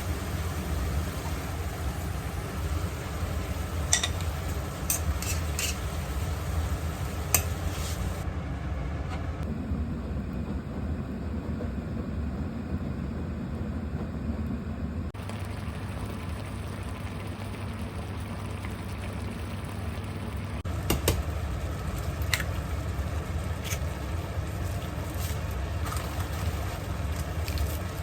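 Kitchen cooking sounds: a steady low hum and faint sizzling, with a few light clinks of utensils now and then.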